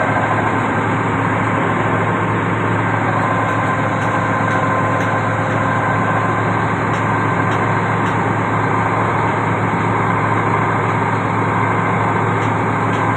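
Junjin 42-metre truck-mounted concrete pump running steadily, its engine humming with a steady whine of several high tones over it.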